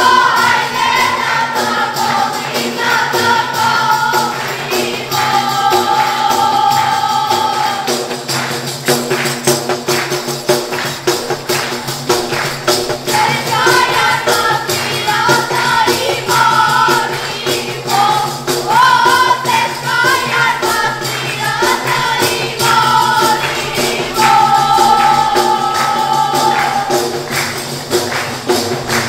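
Albanian def frame drums beaten in a steady, fast rhythm with jingling, under a group of women singing a traditional wedding song together in phrases. The singing pauses for a few seconds about a third of the way in while the drums carry on.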